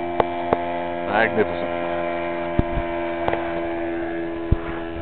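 Steady engine drone at an unchanging pitch from a half-scale RC Fokker Dr.I triplane model in flight, with a few sharp clicks over it.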